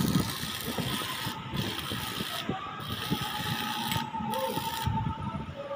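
Arc welding on a steel beam connection: a crackling hiss that stops and restarts several times, over a steady hum of machinery.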